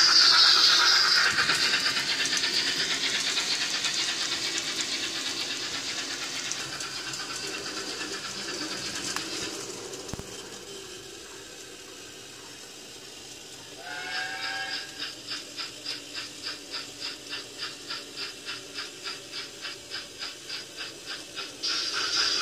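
Steam sound from the DCC sound decoder in an N gauge Dapol Britannia model locomotive. Steam hiss fades away over the first half. After a quiet spell comes a short whistle, then an even chuffing of about three beats a second, and a louder burst of hiss near the end.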